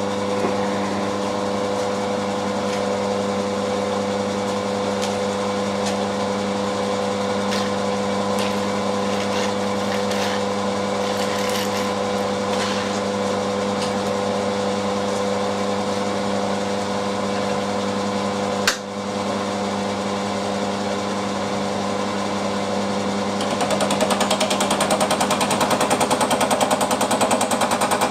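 Milling machine fly cutter taking a light skim cut across a metal block, a steady hum with a fast rattle from the single cutting tool. There is one sharp click about two-thirds through. Near the end the cut grows louder and the rapid rattle more pronounced.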